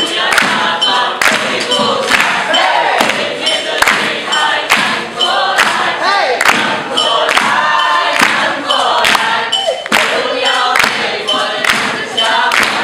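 Several voices singing or chanting together over a steady beat of percussive hits on everyday objects, about two hits a second.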